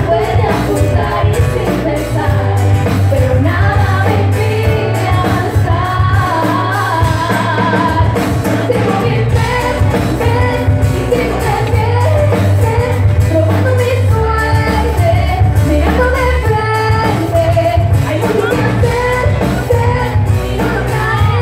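Live band playing a song: singing over acoustic guitar and electric bass, with a heavy bass line.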